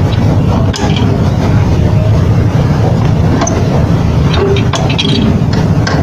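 Scattered metal clicks and knocks as a gloved hand works at a refrigerator compressor's copper tubing, over a steady low rumble.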